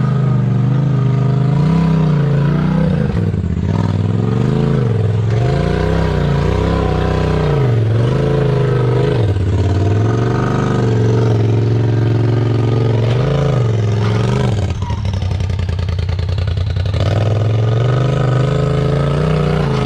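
Polaris RZR XP Turbo side-by-side's engine working in low-speed rock crawling, revving up and dropping back again and again under short bursts of throttle, and settling lower near the end.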